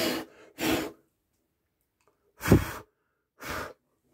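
A person's breathy exhalations, like sighs: four short puffs of breath with silence between, the loudest about two and a half seconds in.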